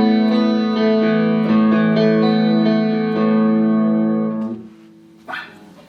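Clean electric guitar played through a Boss CE-5 Chorus Ensemble pedal into two Roland JC-120 amps: picked notes about twice a second over held lower notes, stopping about four and a half seconds in and ringing out, then one short strum near the end.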